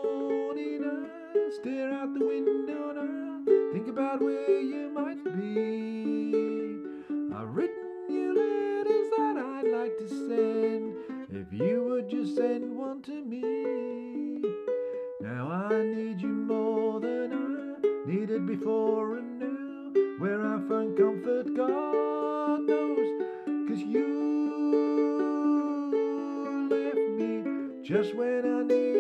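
Ukulele strummed in steady chords, with a man singing along to it.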